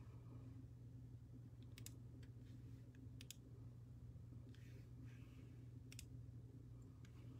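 Near silence with a steady low electrical hum, broken by a handful of faint sharp clicks: two close together about two seconds in, two more just after three seconds, and single ones later on.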